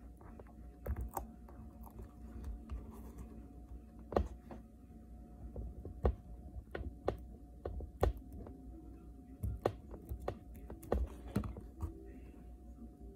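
Small metal repair tools clicking, tapping and scraping on an iPhone 6s display assembly and its metal shield plate: irregular sharp clicks, a few of them louder.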